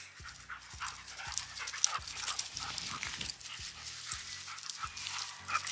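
Doberman panting hard in a steady rhythm of about three breaths a second, out of breath from a long run.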